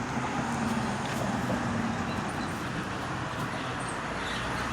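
Steady hum of road traffic, with a low engine drone in the first second or so.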